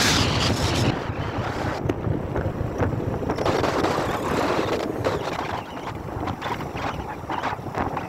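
Wind buffeting the microphone of a moving motorcycle, a dense steady rush mixed with road and motor noise.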